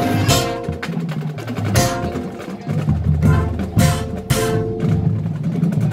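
High school marching band playing a field show: sustained low notes under mallet and drum percussion, punctuated by four loud full-ensemble hits.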